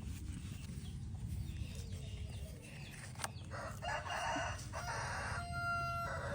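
A hoarse, drawn-out animal call, in three sections through the second half, over a low steady rumble.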